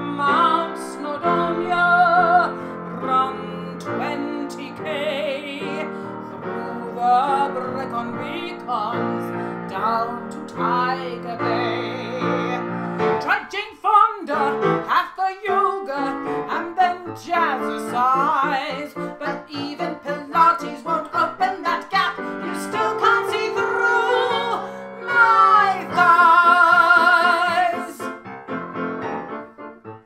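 A woman singing a comic song in a big, operatic style with vibrato, accompanied on piano. Near the end she holds one loud, sustained note with a wide vibrato.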